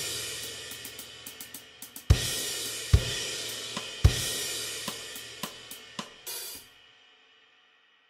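Programmed drum kit (GarageBand's SoCal kit) playing a rock beat of kick, snare and hi-hat, with louder crash-cymbal hits about two and four seconds in. About six and a half seconds in the playing stops and the ring dies away to silence.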